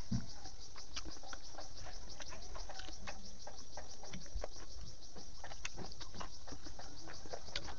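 Insects chirping in a steady, even pulse of about six beats a second, with scattered soft clicks of chewing and of fingers picking through food.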